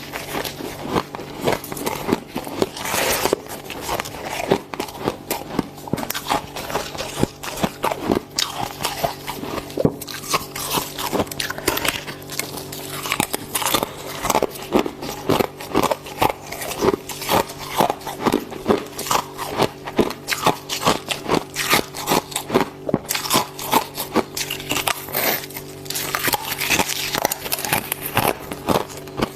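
Close-up crunching of fluffy freezer frost and ice chips being bitten and chewed, a continuous run of quick, irregular crunches.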